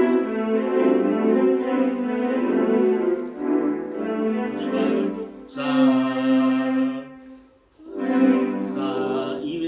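Portable electronic keyboard sounding held, sustained notes and chords as keys are pressed. The notes stop briefly about three-quarters of the way through, then start again.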